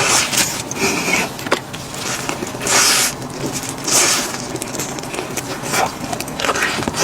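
Crisp crackling and scraping from KFC fried chicken and its paper packaging being handled up close, in a handful of short bursts a second or so apart.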